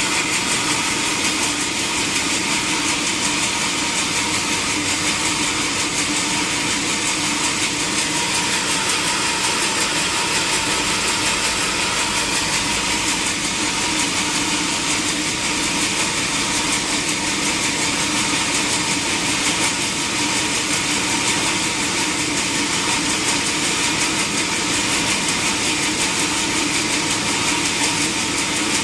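Sawmill machinery running steadily: a constant motor drone with a strong, even high-pitched hiss.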